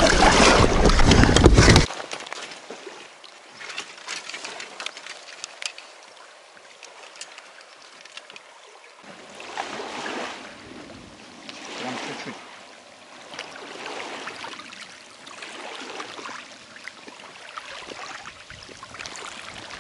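River water lapping gently at the bank and the boat, in soft swells every couple of seconds. A loud rush of noise fills the first two seconds.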